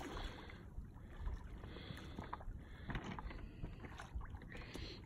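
Water splashing and sloshing at the rocky shoreline in several irregular surges as a large catfish is played to the bank and grabbed by hand, over a low wind rumble on the microphone.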